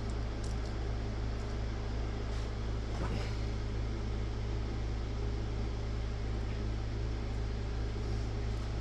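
Steady low hum of running equipment, with a faint tap about three seconds in.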